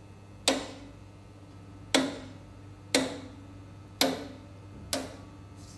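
Five sharp clicks about a second apart, each with a brief metallic ring, as a DTF printer's spring-loaded pinch-roller units, which press the film onto the feed, are snapped into place one after another.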